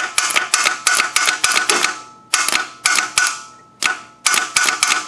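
Starter solenoid clicking rapidly in repeated bursts of about a second as the key is held, while the starter does not turn the engine over: a sign of a failing starter, which needs replacing.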